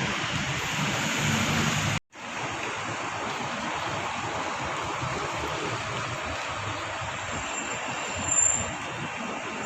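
Steady heavy rain, a constant even rush, cut off for an instant about two seconds in before it carries on.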